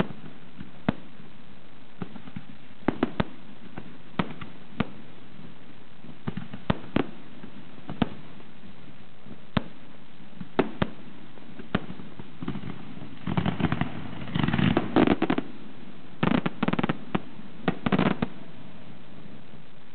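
Aerial firework shells bursting one after another, single sharp bangs every second or so. In the second half the bursts come in dense clusters of rapid crackling bangs.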